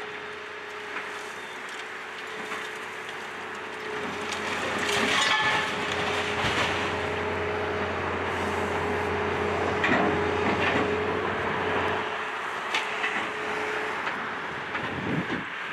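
Daewoo 175LCV tracked excavator's diesel engine running with a steady whine as its bucket pushes over a brick chimney. The brickwork breaks up and comes down in a loud rubbling crash from about four seconds in, followed by scattered clatters of falling brick.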